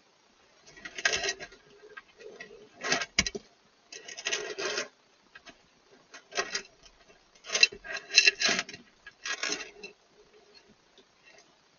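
Hedgehog eating from a feed bowl: bursts of crunchy chewing and rasping, about seven in all, with short quiet pauses between them.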